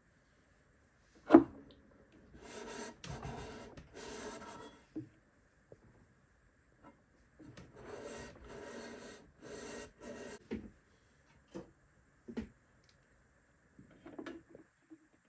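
A Fender 5C3 Deluxe amplifier chassis being worked out of its wooden tweed cabinet. There is one sharp knock about a second in, then two spells of scraping and rubbing of metal against wood a few seconds long, and a few small knocks near the end.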